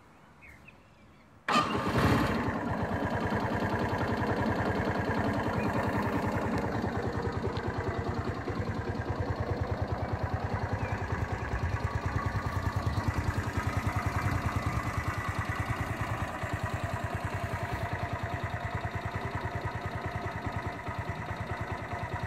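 Genata XRZ 125's four-stroke 125 cc motorcycle engine starting about a second and a half in, catching at once and settling into a steady idle with a fast, even beat.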